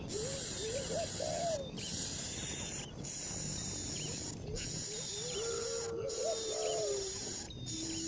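Bird calls: a quick run of short, low rising-and-falling notes, then a few more notes and a longer held note near the end. They sound over a steady high insect-like drone that keeps cutting out briefly.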